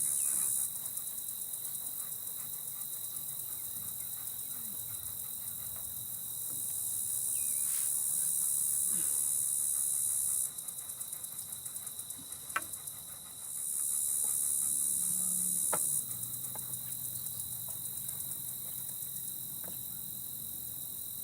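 Outdoor insect chorus: crickets trilling one steady high note, under a higher buzzing chorus that swells and fades in slow waves. A couple of faint sharp knocks come about two-thirds of the way through.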